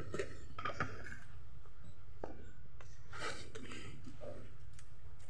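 Small kitchen handling noises: scattered clicks and short rustles as a plastic container with a red cap is handled over a metal tray of chopped banana blossom, over a low steady hum.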